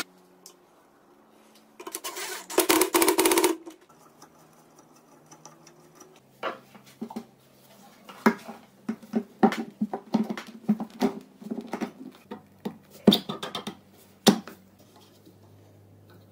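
Workshop handling noise. A short noisy burst of about two seconds comes first, then an irregular run of sharp clicks and knocks as metal parts and tools are moved and set down, over a faint steady hum.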